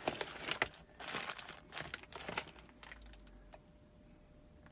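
Clear plastic storage boxes and the small plastic bags of beads inside them being handled, crinkling and rustling in irregular bursts, dying away after about two and a half seconds.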